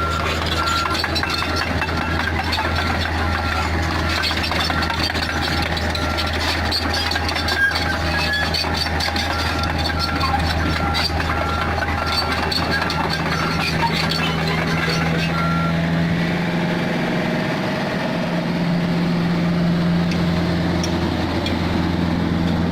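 Komatsu PC45 mini excavator's diesel engine running steadily under work, with scattered metallic clinks and a repeating warning beep. The beeping stops about two-thirds of the way through, and the engine note then rises and strengthens.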